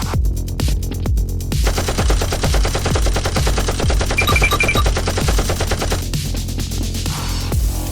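Electronic dance music with a steady beat. From about a second and a half in until about six seconds, a long burst of rapid-fire gunshots plays over it.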